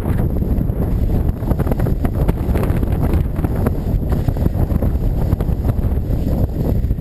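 Wind buffeting the microphone of a camera worn by a skier moving downhill, a loud, steady low rumble, mixed with the scrape of skis sliding over the snow.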